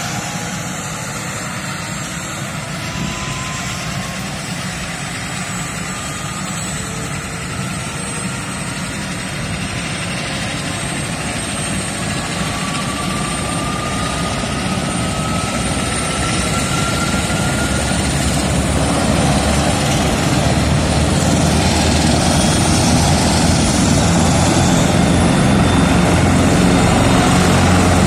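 Large military helicopter's turbine engines whining on the ground. Thin whine tones rise slowly in pitch and the sound grows steadily louder, with a low rumble building up in the last third, as the engines and rotor spool up.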